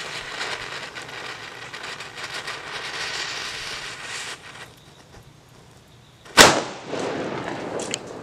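Homemade firecracker charge in a padlock's keyhole hissing and spraying sparks as its fuse and powder burn, dying down after about four seconds. Then a single sharp, loud bang about six seconds in, with a brief ringing after it.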